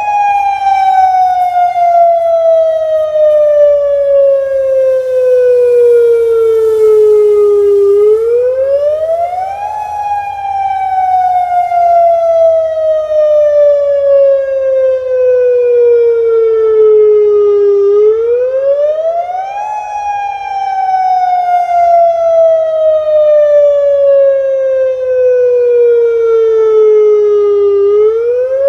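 Federal Signal Modulator 6024B outdoor warning siren sounding its monthly test tone: a loud pitch that rises quickly over about two seconds, then slides slowly down over about eight seconds, repeating about every ten seconds.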